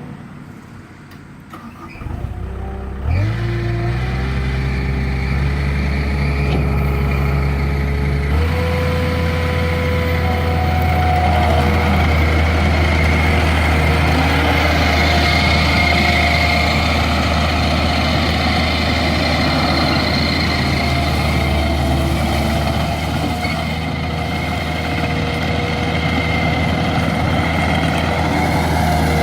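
Takeuchi TL140 compact track loader's diesel engine starting: a short crank about two seconds in, catching a second later and idling low, then throttled up to a higher steady speed about eight seconds in and running on steadily.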